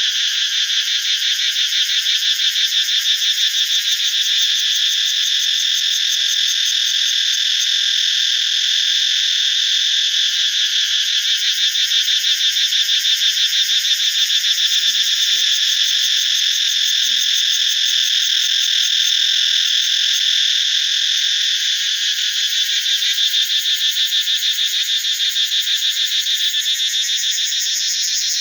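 Cicadas singing in a loud, unbroken chorus: a high-pitched, shrill buzz with a fast throbbing pulse that swells and eases a few times.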